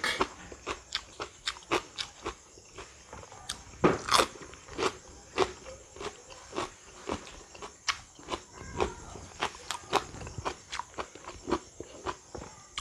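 A person biting and chewing crisp raw fruit: a steady run of crunches, about two a second, with a louder bite about four seconds in.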